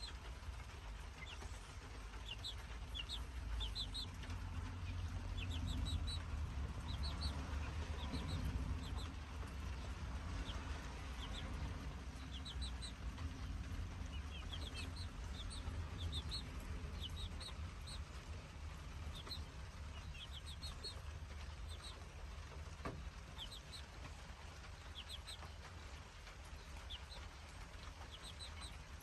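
Chicks (young chickens) peeping in short high chirps, in little runs of two to four, repeated over and over as they feed together, over a low steady rumble.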